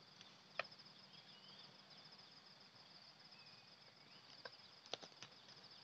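Faint outdoor ambience: a steady, rapidly pulsing high insect trill, with a couple of faint bird chirps and a few sharp knocks from wood being handled at the campfire, the loudest about half a second in and a small cluster near the end.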